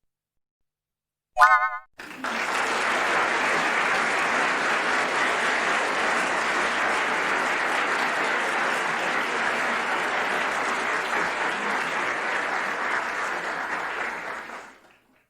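Crowd applause sound effect: many people clapping at a steady level for about thirteen seconds, fading out near the end. A short wobbling tone sounds just before the clapping begins.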